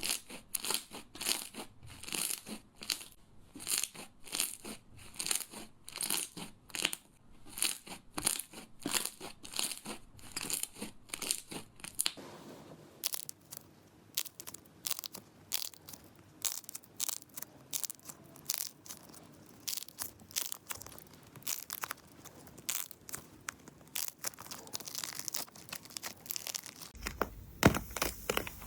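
Slime being squished and pressed by hand, making crisp crackling squelches: a quick, even rhythm for the first twelve seconds or so, then denser, irregular crackles and pops.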